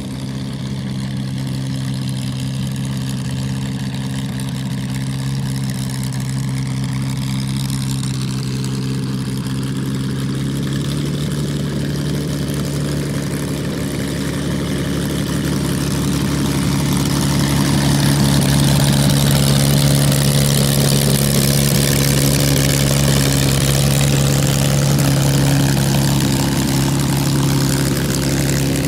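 Thunder Mustang's Falconer V-12 engine idling at low power while the plane taxis, a steady low drone with propeller noise. It gets gradually louder over the first two-thirds.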